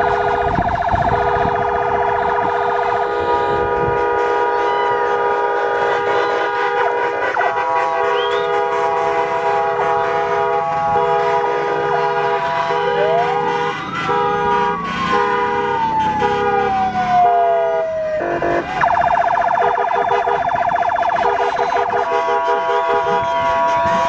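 Background music: sustained electronic keyboard or synthesizer tones with wavering trills near the start and end, and about halfway a note that slides up and then slowly back down.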